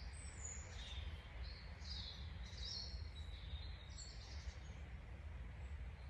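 Small forest birds chirping, short high calls coming one after another and thinning out after about four seconds, over a steady low background rumble.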